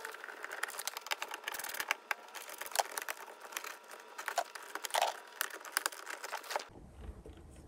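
Faint, rapid small clicks and ticks of a Phillips screwdriver and hands working on the plastic dashboard trim to remove a cup holder's screws, with a few sharper plastic clicks scattered through.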